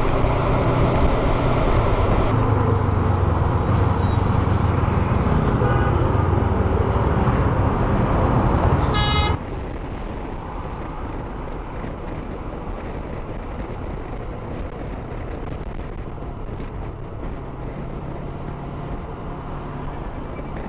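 Honda CB500X parallel-twin motorcycle riding through heavy city traffic, engine and traffic noise mixed together, with a brief vehicle horn just before nine seconds in. About nine seconds in the sound drops abruptly to a quieter, steady engine and road noise.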